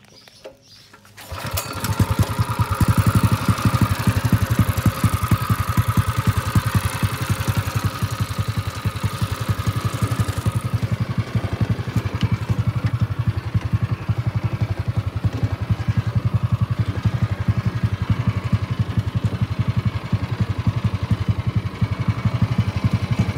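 A go-kart's small single-cylinder engine starts about a second in and then runs steadily at a fast idle, cold and warming up. Its note gets duller about ten seconds in.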